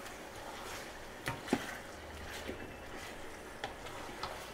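Wooden spatula stirring chicken pieces through hot oil and onions in a stainless steel pot, with a few light knocks of the spatula against the pot over a faint steady sizzle.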